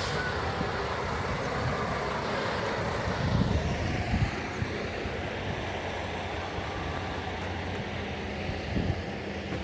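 Heavy diesel equipment engine running steadily, with a few louder thuds: one about three and a half seconds in, another at about four seconds, and one near the end.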